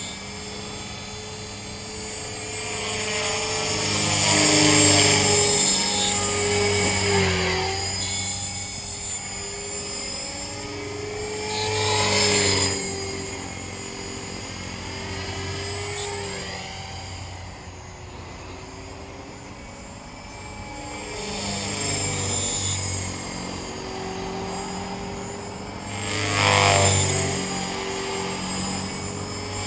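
Trex 450 electric RC helicopter in flight: its 3500kv motor and rotor drone swell loudly as it passes close, about three times, with the pitch bending at each pass. A bad main bearing squeals through the flight.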